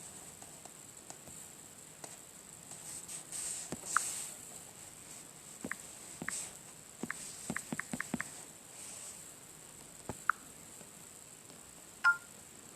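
Faint room noise with scattered sharp clicks, including a quick run of about eight clicks around the middle, a few soft rustling swells, and a short bright blip near the end.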